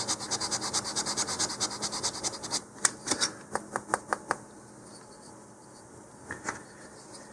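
Sanding block with 150-grit sandpaper rubbed in quick back-and-forth strokes, about seven a second, across the shoulder of a square wooden nose cone, rounding off its corners. The strokes stop about two and a half seconds in and are followed by several sharp taps.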